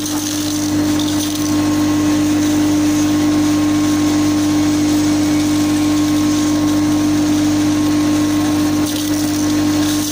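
Horizontal continuous casting machine running with a steady hum and one strong constant tone, over the hiss of cooling water spraying onto the cast metal bar.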